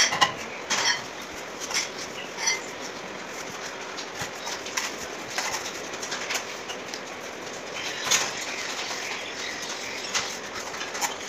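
Steel trowel scraping and patting a bed of sand-cement mortar on a stair step: a series of short, irregularly spaced scrapes and taps.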